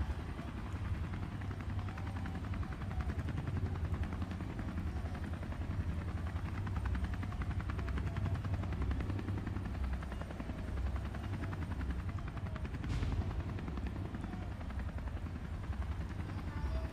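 Helicopter rotor chop: a fast, steady beating over a deep rumble, with a brief hiss about two-thirds of the way through.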